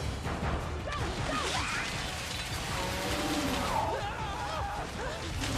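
Cartoon action-scene soundtrack: music mixed with crashing and whooshing sound effects and gliding vocal-like cries.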